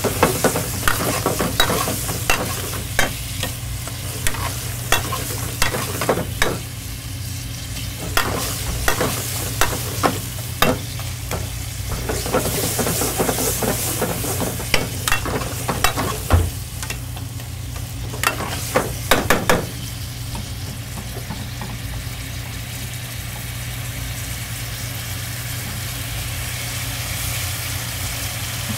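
Stir-frying in a wok: food sizzles steadily while a metal ladle clanks and scrapes against the wok in quick, irregular strokes over a steady low hum. The strokes stop about twenty seconds in and the sizzle runs on.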